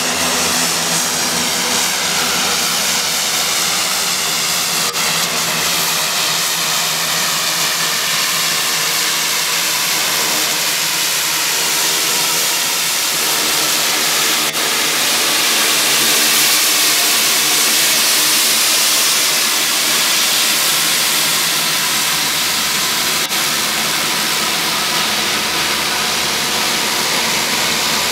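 Twin turboprop engines of a Dornier 228 running as it taxis close by: a steady propeller drone with turbine hiss and whine, swelling a little around the middle.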